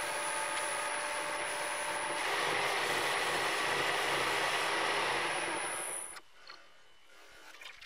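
Wood lathe running while EEE-Ultrashine paste polish is rubbed onto the spinning wooden grinder base, a steady friction hiss over the lathe's thin high whine. It grows louder about two seconds in and cuts off about six seconds in.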